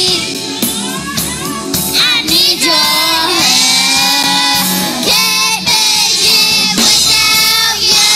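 Children's choir singing through handheld microphones, with long held notes.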